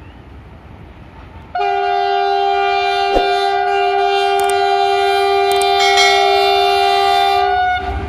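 Air horn of a GE ES43ACmi (WDG-4G) diesel-electric freight locomotive sounding one long steady blast, a chord of several tones, starting about one and a half seconds in and lasting about six seconds. Beneath it is the low rumble of the approaching train.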